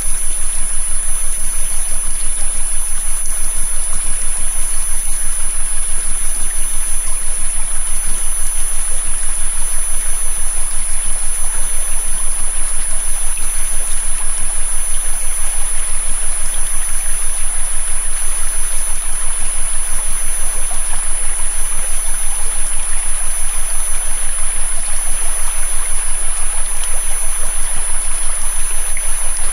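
Flowing river water with steady synthetic tones layered over it: a thin high-pitched whine and a low hum, unchanging throughout.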